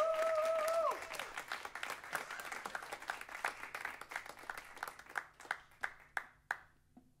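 Small audience applauding after a song, the clapping thinning to a few scattered claps and dying away near the end. A long steady tone sounds over the applause during the first second.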